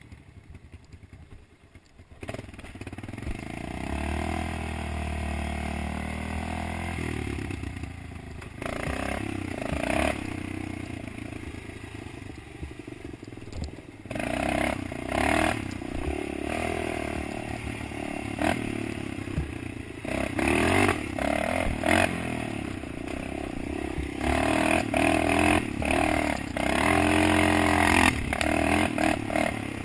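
Engine of an off-road machine revving up and down as it rides a rough dirt trail, with rattles and knocks from the bumps. Quiet for about the first two seconds, then the engine picks up.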